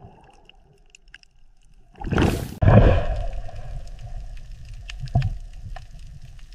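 Underwater ambience: faint at first, then a loud rushing burst about two seconds in, followed by low rumbling water noise with scattered faint clicks and a thump about five seconds in.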